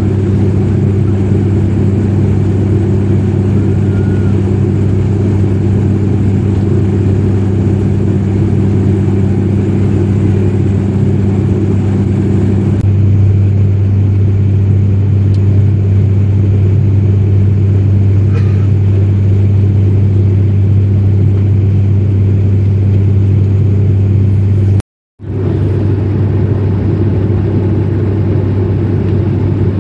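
In-cabin drone of an ATR 72-500's turboprop engine and six-blade propeller, heard from a window seat beside it in flight: a loud, steady hum with a strong low tone. The sound drops out for a moment near the end.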